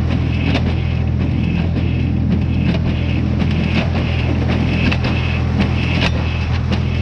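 Tractor-driven small square baler running: a steady engine drone with a regular knock from the baler's working strokes about twice a second.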